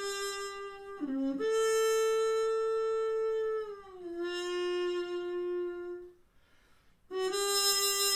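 Trumpet played through a metal Harmon mute, giving a thin, buzzy, very bright tone: a slow phrase of long held notes, with a short lower note about a second in and a note that slides down around four seconds. The playing breaks off for about a second near the six-second mark, then resumes on a new held note.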